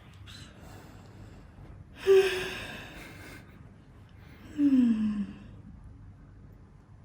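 A person gasps sharply about two seconds in, then lets out a short sigh that falls in pitch a little under three seconds later: vocal reactions to a chiropractic spinal adjustment.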